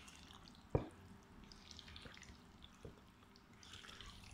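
A silicone spatula stirring chopped fruit through thick yogurt in a glass bowl: faint wet squelching, with one sharp knock just under a second in and a smaller one near three seconds.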